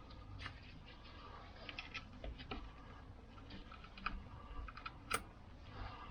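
Small metallic clicks and taps of a set of feeler gauge blades being handled and fanned out, with one sharper click about five seconds in.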